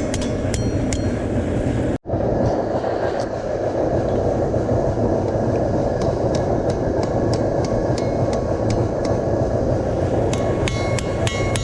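Hammer blows on steel at an anvil, sharp ringing strikes over a steady loud background roar. The strikes thin out after a brief dropout about two seconds in and come thick again near the end.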